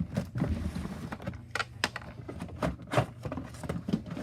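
Irregular clicks, taps and rustles from a plastic fire alarm horn strobe being handled, over a steady low hum.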